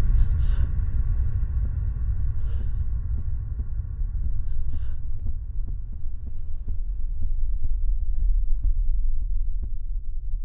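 Horror-film sound design: a loud, deep, steady drone with a soft regular pulse about twice a second, growing clearer after the first few seconds.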